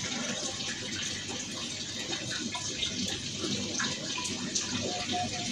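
Aquarium water trickling and bubbling steadily from the tank's sponge filter, with small scattered drips and pops.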